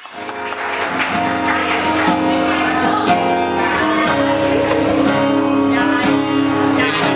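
Music with guitar, starting right at the opening and running at a steady level.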